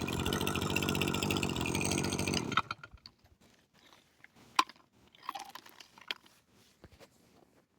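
Kioritz SRE2720 brush cutter's two-stroke engine running steadily, then cutting out suddenly about two and a half seconds in, followed by a few light clicks and knocks. The unit is sold as junk because it makes an abnormal hissing noise.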